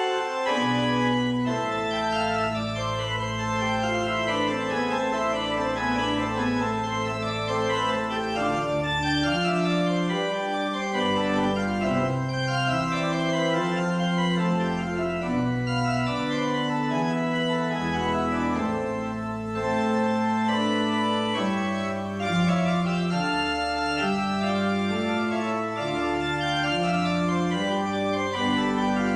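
Organ playing a slow prelude of sustained chords that change every second or two, with a held bass line underneath.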